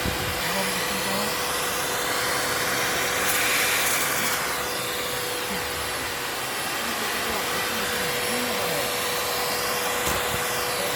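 Vacuum cleaner running steadily: an even rush of air with a constant whine, the hiss swelling briefly about three and a half seconds in.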